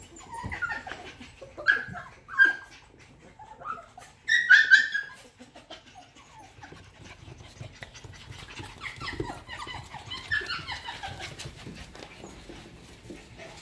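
A litter of F1B mini goldendoodle puppies playing, giving short high yips and whines, the loudest burst about four and a half seconds in and fainter ones later, with many small clicks of claws on a hardwood floor.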